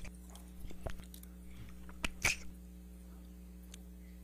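Quiet courtroom microphone feed: a steady low electrical hum with a few short clicks and small noises, the loudest a brief sharp one about two seconds in.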